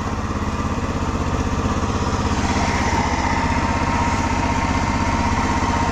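Small Honda GX-type petrol engine, the kind used on generators, driving the river ferry and running at a steady speed with an even, fast pulse.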